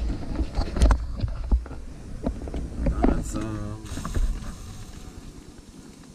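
Camera handling noise: thumps, knocks and rustling as the camera is picked up, moved and set down, with a brief vocal sound just past three seconds. After about four and a half seconds it settles to a faint steady hiss.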